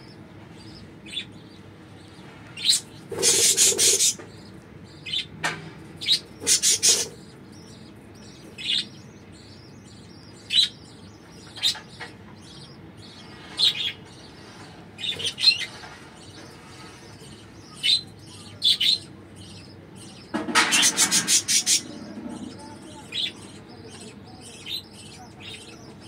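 Budgerigars chirping in the nest: scattered short, high chirps, with bursts of rapid chattering about three seconds in, again near seven seconds, and for over a second around twenty-one seconds.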